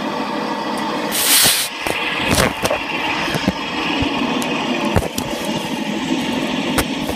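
Diesel locomotive engine running as it hauls a passenger train past, played back through a TV's speaker. A loud burst of hiss comes about a second in, and sharp clicks follow several times.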